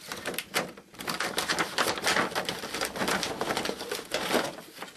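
Clear plastic packaging crinkling and rustling as hands pull it off the clock parts, a dense run of crackles with a short lull near the end.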